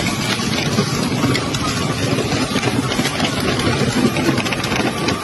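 Ride-on toy tractor and trailer rolling over gravel: a steady rumble with small crackles from the plastic wheels crunching on the stones.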